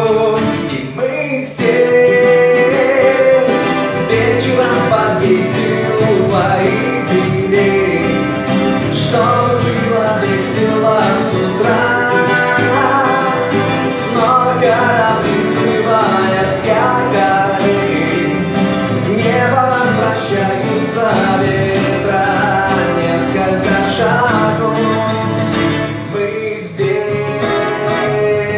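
Two acoustic guitars played live, one strumming the rhythm while the other picks a lead melody.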